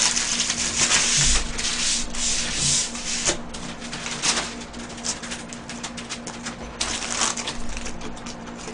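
Paper burger wrapper rustling and crinkling as it is handled, loudest in the first three seconds, then softer, scattered rustles.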